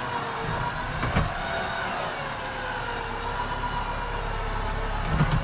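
Electric winch on a Jeep Wrangler Rubicon whining under load as it pulls the stuck Jeep forward, over the steady idle of the Jeep's engine. A short knock about a second in.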